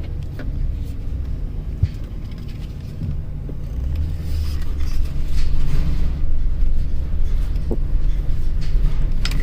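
2007 Chevrolet Express 3500's 6.0-litre V8 idling with a steady low rumble and no knock, a little louder about halfway through. The knock came from a cracked flexplate; with a new flexplate, spacer and torque converter fitted it is gone.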